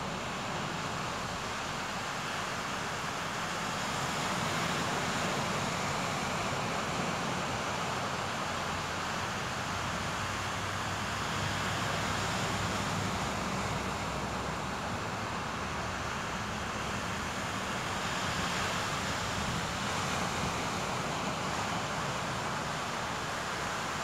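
Small waves breaking and washing up a sandy beach: a steady rush of surf that swells and eases every few seconds.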